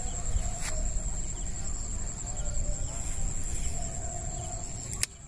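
Insects trilling in one steady high tone over a low rumble, with a sharp click about five seconds in.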